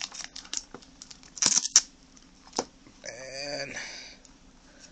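Thin plastic wrapping crinkling and crackling in short spurts as it is pulled off a computer mouse, with a sharp crack about a second and a half in. A brief wordless hum of a voice comes just past the middle.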